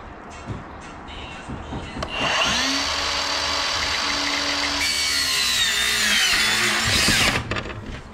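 Power miter saw cutting a length of white baseboard. After a few light handling knocks, the saw starts abruptly about two seconds in and runs with a steady motor whine through the cut. It stops suddenly about seven seconds in, loudest just before it stops.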